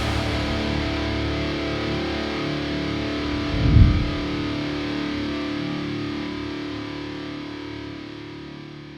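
Background rock music with distorted electric guitar: a held chord rings on, with a low swell about four seconds in, then slowly fades out.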